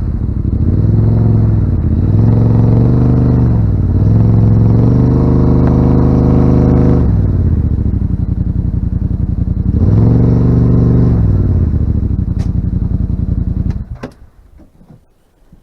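Yamaha RMAX side-by-side's parallel-twin engine running under load, revving up and down several times with a longer held rev in the middle as the vehicle climbs an obstacle. The engine sound falls away suddenly near the end, followed by a few light clicks.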